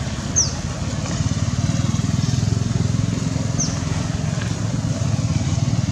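A motor engine running steadily, a low rumble with rapid pulsing. Two short high chirps that fall in pitch come through it, about half a second in and again near the middle.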